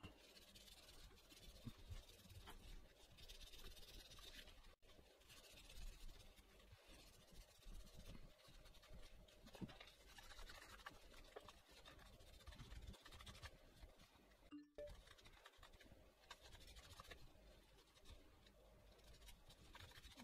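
Faint rubbing and scratching of a paper towel, wet with adhesive remover, being scrubbed over a compact camera's sticky rubber coating.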